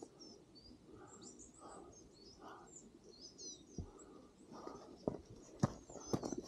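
Small birds chirping faintly in quick, high notes over a quiet outdoor background; about five seconds in, a hiker's footsteps start as a run of sharp steps.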